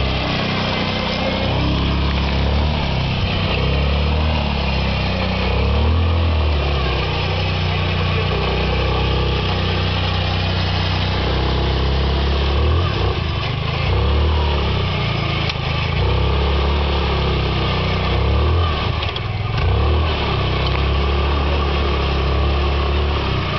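ATV (quad bike) engine running close by, its level swelling and easing as the quad works through mud and snow.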